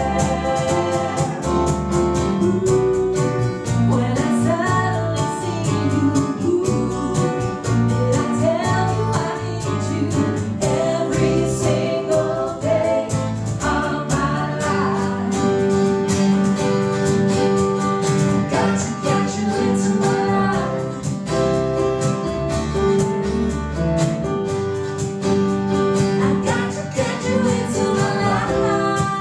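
A live song: voices singing over a steadily strummed acoustic guitar.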